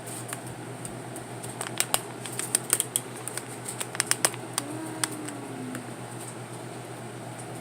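Sticky glitter slime being worked in the hands, giving irregular small clicks and pops, most of them between about a second and a half and five seconds in.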